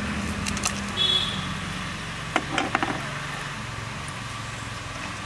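Whole spices (cardamom, cloves, cinnamon) dropped into hot oil in an aluminium pan, with a handful of sharp crackles and pops as they start to fry, over a steady low rumble.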